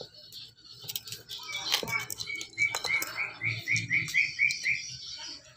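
A quick run of about a dozen short high chirps, about four a second, starting about two seconds in, over light scuffling clicks of kittens wrestling on the floor.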